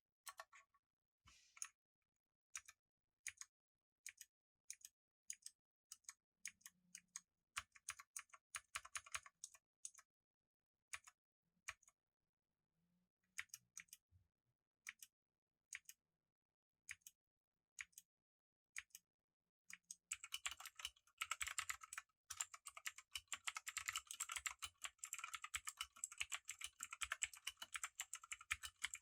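Motospeed CK62 mechanical keyboard with clicky blue Otemu switches being typed on: single keystrokes about half a second to a second apart, a few short runs, then fast continuous typing from about twenty seconds in.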